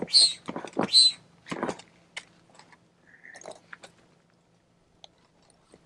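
Air pump inflating the floor chamber of a Sea Eagle SE-370 inflatable kayak: three strokes a little under a second apart, each a rush of air with a high whistle, stopping about two seconds in. Light clicks and handling noises follow.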